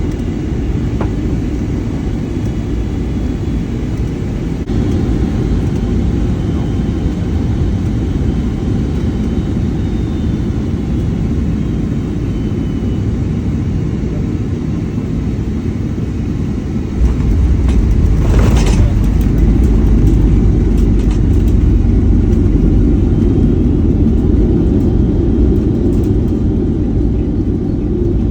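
Cabin noise aboard a Boeing 757-300 landing in gusty wind: a steady low rumble of engines and airflow. About two-thirds of the way through it steps up louder and deeper, with a brief hiss just after.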